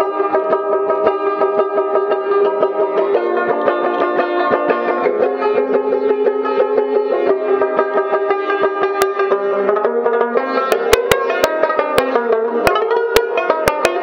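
Afghan rubab music: a quick plucked melody over steadily ringing drone strings.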